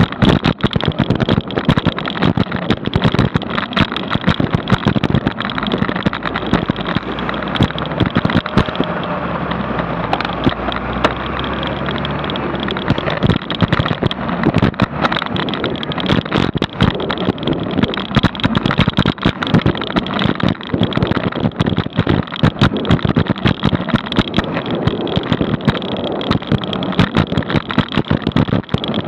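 Wind and road noise buffeting the microphone of a bicycle-mounted action camera while riding in city traffic, full of constant crackle and rattle. A deeper engine rumble from a double-decker bus swells in around the middle.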